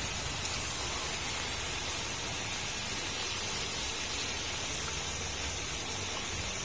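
Steady rush of rain and storm runoff pouring into a slotted curb drain inlet that has just been cleared of leaves.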